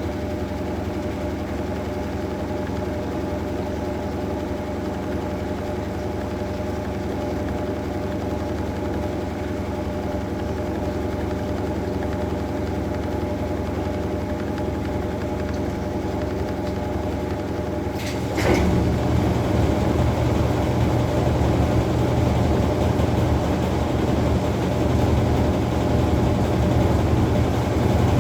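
Maytag Bravos top-load washing machine running with a steady motor hum. About two-thirds of the way through there is a click, and the running sound steps up louder and heavier from there on.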